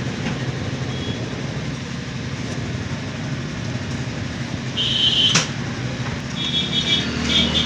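Steady rumble of background vehicle traffic, with one sharp click about five seconds in and short bursts of high-pitched squeaking around it and again near the end.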